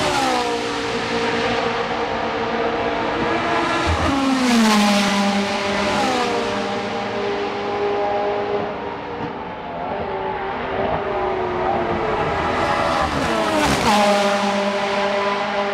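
Race cars at full throttle passing one after another, the engine pitch dropping as each goes by: once about four seconds in and again near the end. Between the passes several engines sound at once, and the engine sound echoes off the surrounding woods.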